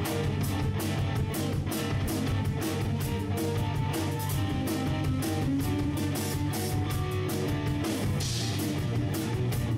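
Instrumental progressive rock: guitar notes over bass and a steady drum beat, with a cymbal crash near the end.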